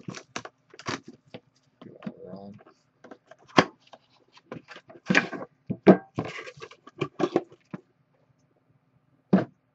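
Plastic shrink wrap crinkling as it is peeled off a cardboard trading-card box, with scrapes and taps as the box is opened and handled, then a single knock near the end.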